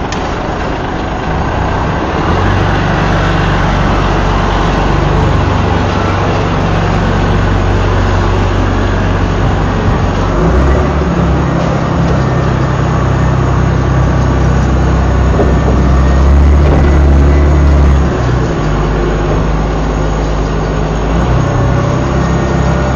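Front-end loader's diesel engine running under load, heard from the operator's seat. The engine note shifts several times as the loader works, with a heavier, deeper stretch from about ten to eighteen seconds in before it eases back.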